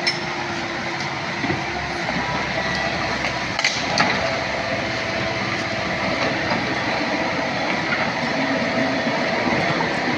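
Komatsu PC78UU excavator running and working, a steady mechanical din with a held whine that steps higher partway through, and a few short metal clanks about four seconds in.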